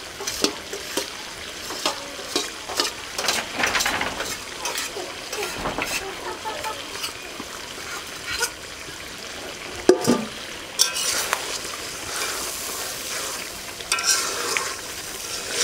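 Chicken pieces sizzling as they fry down in spices in an aluminium pot, stirred and scraped with a metal spatula, giving repeated clinks and scrapes. A sharp knock stands out about ten seconds in.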